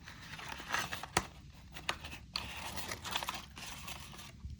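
Plastic packaging crinkling and rustling as small parts are unpacked from a box, with a sharp click about a second in.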